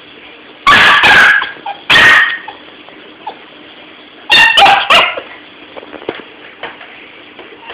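Young golden retriever barking loudly: a few barks in the first two and a half seconds, then a quick run of three or four more about four and a half seconds in.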